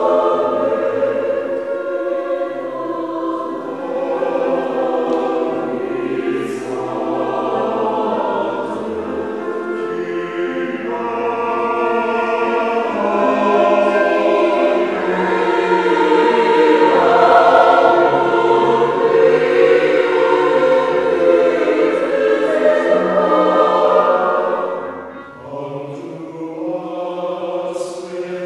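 Mixed-voice chorus singing a slow choral piece in sustained chords, swelling to its loudest around the middle, then dropping off briefly before a softer phrase near the end.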